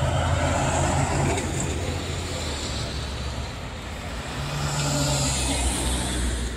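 Road traffic at an intersection: cars driving by with tyre noise and engine hum. A second vehicle passes close around five to six seconds in.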